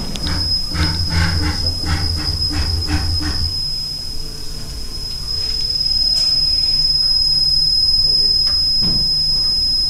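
1988 Vulcan 2814 CNC vertical milling machine running with a steady high-pitched whine. A series of low, pulsing knocks comes in the first three and a half seconds, and a louder steady hissing noise sets in about six seconds in.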